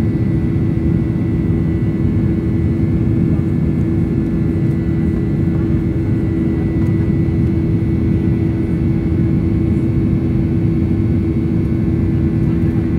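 Steady cabin noise of a jet airliner in flight, heard inside the cabin: the turbofan engines and airflow make an even, unbroken drone with a constant low hum.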